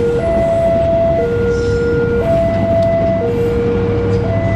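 Level-crossing warning alarm sounding a two-tone signal that alternates between a lower and a higher tone about once a second, warning that a train is passing. Under it runs the steady rumble of a passenger train's wheels on the rails.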